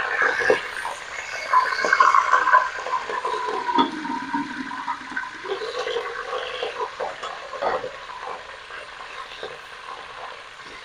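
Raw chicken sizzling and spattering in hot oil in an aluminium pot, loud because the meat is wet. The sizzle is strongest for the first few seconds and then dies down, with a few sharp metal knocks.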